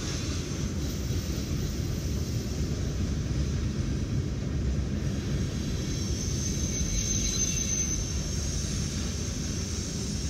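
Freight train cars rolling past close by, a steady rumble of steel wheels on the rails, heard from inside a car's cabin through the windshield. A faint high-pitched squeal rises briefly about six seconds in.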